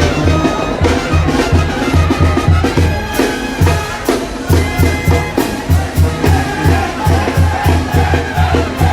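Loud Mexican band music with brass over a fast, steady bass beat.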